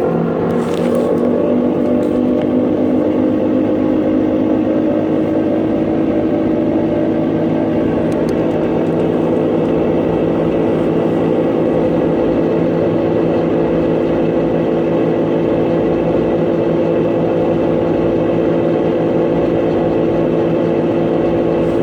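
Kenmore Elite Oasis high-efficiency top-load washer running its spin cycle: a steady motor hum with several pitched tones that climb a little over the first couple of seconds as the drum speeds up, then hold steady.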